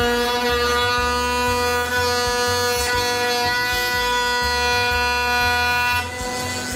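Chinese 6090 CNC router running with a steady, pitched whine while its spindle head is jogged along the X axis from the hand pendant in manual mode. The whine drops in level about six seconds in.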